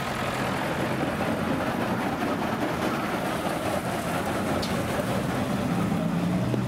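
A vehicle engine running under a steady, noisy rumble, with a deeper engine hum growing stronger near the end.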